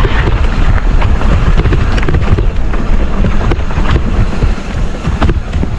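Wind buffeting the microphone of a mountain bike going fast downhill, with the bike rattling and clattering over rough trail in many short knocks.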